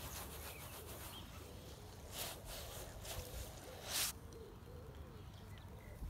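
A bare hand rubbing wet paint across a stretched canvas in sweeping strokes, each a soft swish, the loudest about two and four seconds in.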